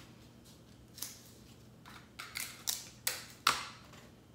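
Sheets of cardstock crackling and rustling in several short, crisp bursts as they are pressed and smoothed flat by hand over taped seams.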